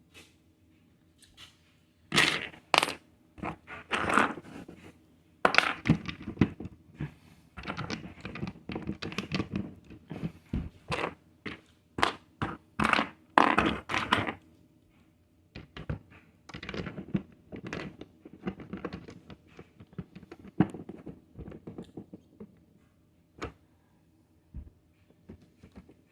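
Loose Lego bricks clattering and knocking as plastic pieces are handled and sorted, with bursts of rummaging that thin out to occasional single clicks in the second half.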